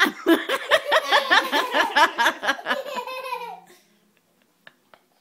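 A person laughing hard in a rapid run of high-pitched ha-ha bursts, about five or six a second, trailing off after about three and a half seconds.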